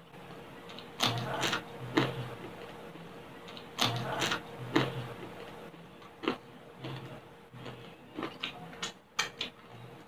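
Close-up crunching of crispy pork belly (liempo) skin being bitten and chewed, in irregular crackly bursts that come in clusters.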